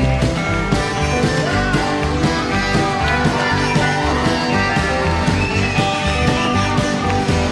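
Live country band music with guitar to the fore, playing steadily.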